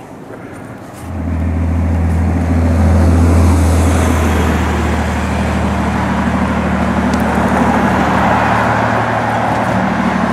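Road traffic passing close by: a heavy truck's engine drones steadily from about a second in, and tyre noise from passing cars swells near the end.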